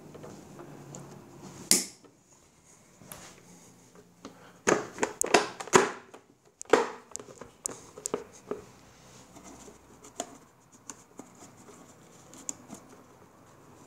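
Hard plastic clicks and knocks from the mower's red plastic engine top cover being set back on and pressed into place, with a quick run of them about five to seven seconds in. A single sharp click comes a couple of seconds in.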